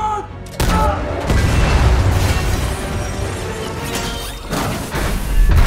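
Film sound mix: a sudden heavy boom about half a second in, then a dense, churning rush of water under the music score, swelling again near the end.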